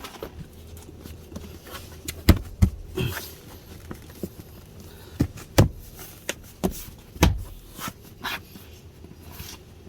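Irregular knocks and clicks of a hard plastic door sill protector being handled and pressed into place on a car's door sill, with a few louder thumps among them.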